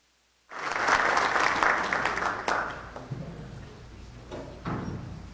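Audience applauding, starting suddenly about half a second in and fading out by about three seconds in.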